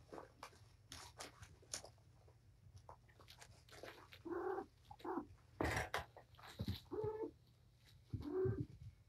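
Cats at play: three short cat calls, about four, seven and eight and a half seconds in, among scratchy rustling and clicks from paws on the floor and pads, with a sharp thump a little past halfway as the loudest sound.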